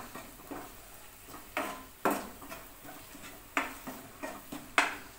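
Steel spoon stirring a thick masala paste in a non-stick pan, knocking and scraping against the pan several times at irregular intervals.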